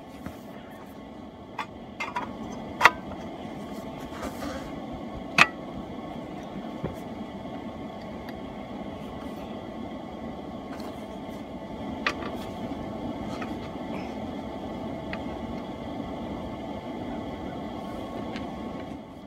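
Sharp clicks and clinks of a stainless steel flue cap and hand tools being handled, the two loudest about three seconds and five and a half seconds in, over a steady low hum.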